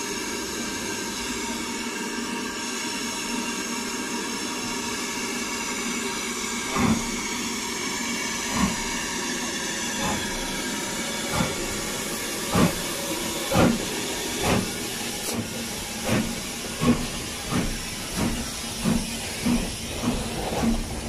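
BR Standard Class 4 4-6-0 steam locomotive 75069 starting away: a steady hiss of steam, then exhaust chuffs begin about seven seconds in, slow at first and coming steadily quicker, about two a second near the end, as the locomotive gathers speed.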